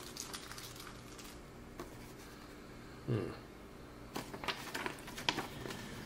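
A paper instruction leaflet rustling and crackling as it is handled and turned, in a cluster of crisp crackles past the middle, with a short murmured "hm" about halfway through.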